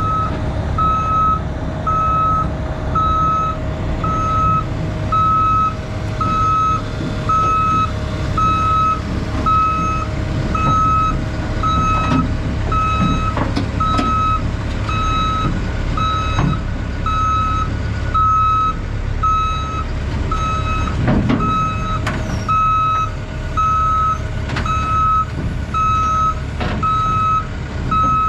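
Heavy-equipment backup alarm beeping steadily, about once a second, over a diesel engine running, with a few metallic knocks partway through.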